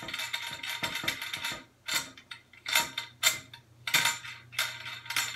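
Brass trombone parts clinking and scraping against each other as the slide section is fitted to the bell and the joint's lock nut is tightened by hand. A busy run of metallic rattles and clicks for the first second and a half, then single clinks every half second or so.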